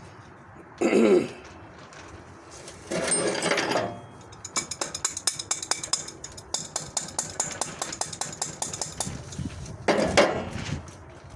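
A run of rapid, evenly repeated sharp clicks lasting about five seconds, from a hand tool such as a ratchet wrench being worked on a motorcycle part that has been on a long time. A few short, louder noises come before and after it.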